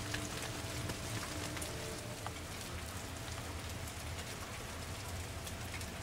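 Steady hiss and patter of heavy wet snow falling.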